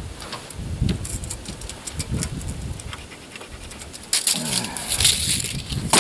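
Small clicks and scrapes of a pencil and hands on a plywood sheet, then about four seconds in the louder whir of a steel tape measure's blade retracting into its case.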